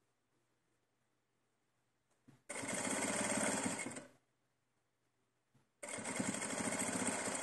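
Domestic sewing machine stitching in two runs: a short run of about a second and a half a couple of seconds in, then a longer run starting near the end, each preceded by a faint click.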